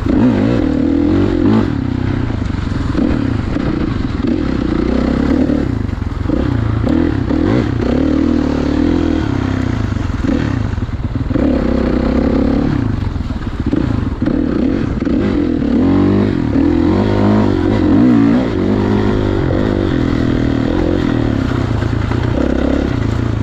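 2016 Kawasaki KX450's single-cylinder four-stroke engine running under changing throttle as the dirt bike is ridden, its pitch climbing and dropping again and again.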